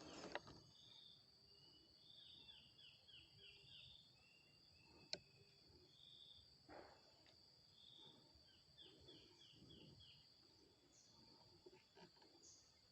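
Faint rural ambience: a steady high insect trill with small birds calling, a short whistled note followed by a run of quick descending chirps, heard twice. A single sharp click about five seconds in.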